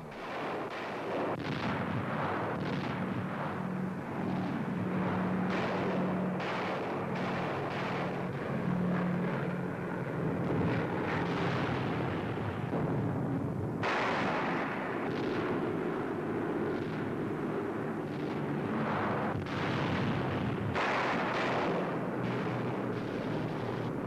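Bombs exploding one after another, a newsreel's effects track of blasts over a steady low drone of bomber engines.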